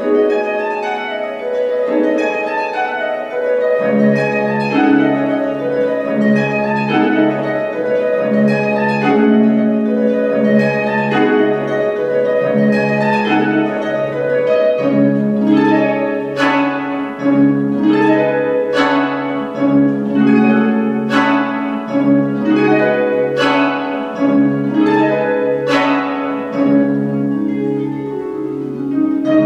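Concert harp played solo: plucked notes throughout, with a repeating low bass figure from about four seconds in under a melody, and sharp, bright accented plucks about once a second through the second half.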